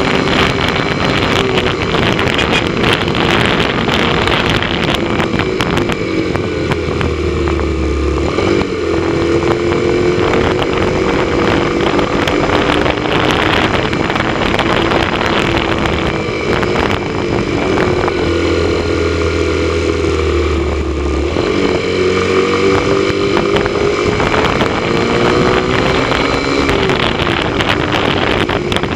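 Motorcycle engine running at a steady cruise, its pitch drifting slowly up and down, under heavy wind rush on the microphone.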